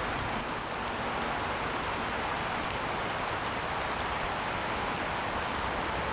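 Creek water rushing steadily, the stream running high after heavy rain.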